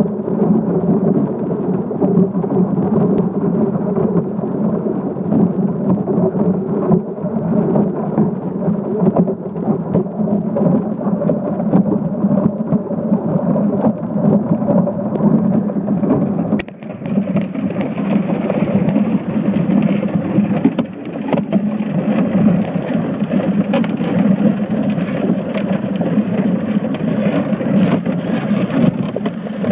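Steady, muffled underwater rumble and hiss picked up by a submerged camera in its housing, with a brief dip and a click a little past halfway.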